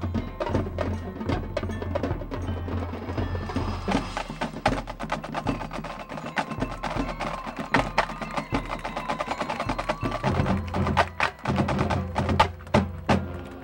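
High school marching band playing, with low brass holding sustained notes under a busy percussion section of drums and mallet instruments with chimes. A few loud accented hits come near the end.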